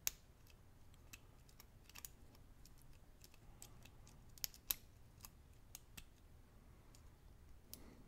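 Faint, scattered clicks of a lock pick working the pins of a Centurion HS padlock's five-pin cylinder under tension, with two sharper clicks in quick succession about halfway through.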